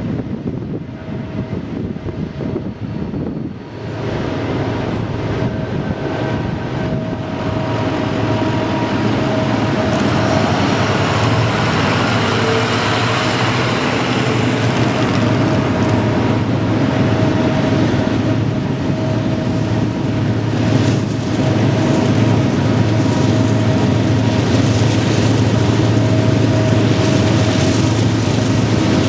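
A train passing close by: a continuous rumble and rush of a locomotive and rolling railcars that builds over the first several seconds, then holds steady.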